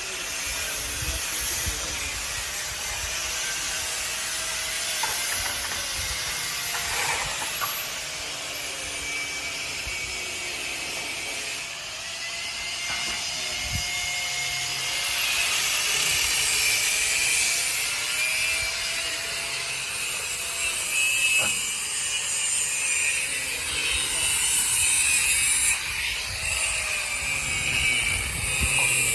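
Abrasive power tool working stainless steel fence tubing: a steady rasping hiss whose pitch swells and falls every few seconds.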